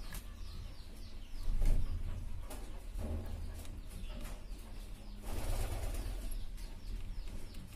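Racing pigeons cooing, with sharp taps and scuffling as a caged pigeon on its perch pecks and strikes at a hand held in front of it. It gets briefly louder twice, about a second and a half in and again just past five seconds.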